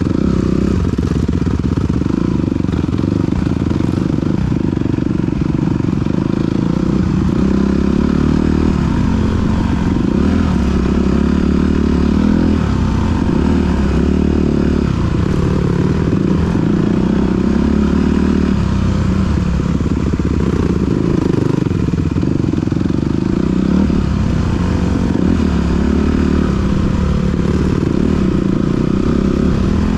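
2021 Honda CRF250R four-stroke single-cylinder dirt bike engine with a Yoshimura RS-9T titanium exhaust, heard from the rider's helmet while trail riding. The engine note rises and drops again and again as the throttle opens and closes and the rider shifts gears.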